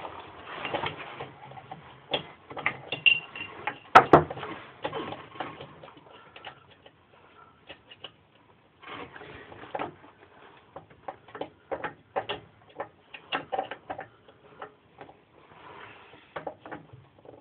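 Small engine parts and hand tools being handled and fitted: irregular metal clicks, taps and light clatter, with one sharper knock about four seconds in.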